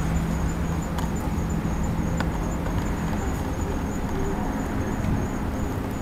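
Insects chirping in a high-pitched, evenly pulsing trill of several chirps a second, over a steady low rumble of road traffic.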